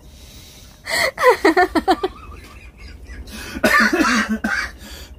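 A man coughing in two fits, one about a second in and another past the middle, muffled by his hand.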